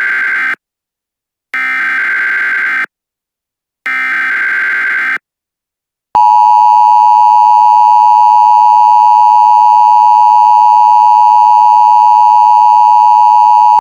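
Emergency Alert System SAME header: harsh digital data bursts about a second long with short silences between, three in all, the first already under way. About six seconds in, the loud, steady two-tone EAS attention signal starts and holds.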